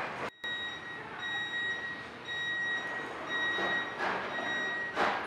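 Door-closing warning signal of a Munich U-Bahn Siemens Inspiro C2 train: a high electronic beep repeating about twice a second. A few knocks come near the end.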